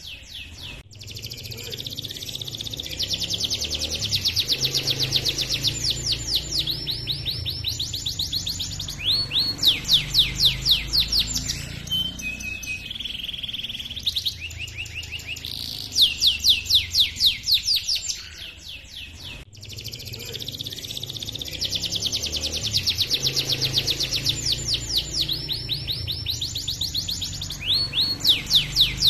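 Domestic canary singing a long rolling song: fast trills and rapidly repeated high chirping notes, the phrases shifting in pitch. About two-thirds of the way through, the same song passage starts over, over a low steady hum.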